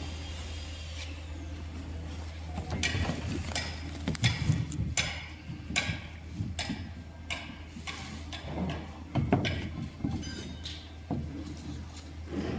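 Irregular rustling, scraping and knocking from handling the plastic wrapping and plywood lid of a wooden packing crate full of bubble-wrapped valves, over a steady low hum.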